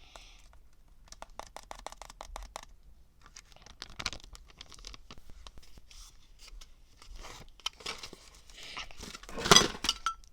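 Wrapper being torn open and crinkled: a quick run of small clicks, then irregular crackling, with the loudest tear near the end.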